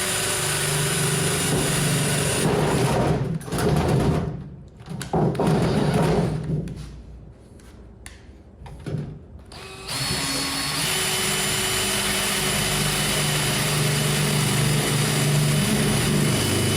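Power drill running while it works through galvanized sheet metal. It runs steadily, then starts and stops unevenly for several seconds with a quieter lull, then runs steadily again.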